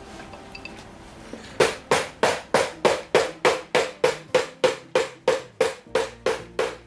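Metal-headed cobbler's hammer tapping cork filler pieces flat onto the bottom of a Goodyear-welted leather shoe, bedding the filler during a sole replacement. Steady, even blows about three a second start about a second and a half in, each with a short metallic ring.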